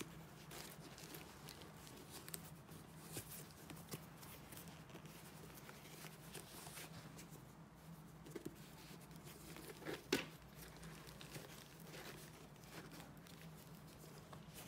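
Faint handling noise from a leather sneaker and tissue paper in its box: soft rustling, crinkling and light taps, with a sharper tap about ten seconds in, over a low steady hum.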